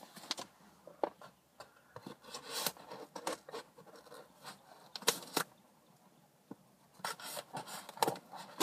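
Scissors scraping and snipping at the duct-taped seams of a cardboard box: irregular scratches and clicks, with a quieter stretch about six seconds in.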